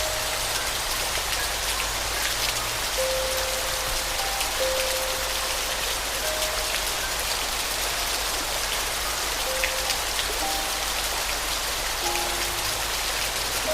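Steady rain falling, with a soft piano playing slow, sparse single notes over it.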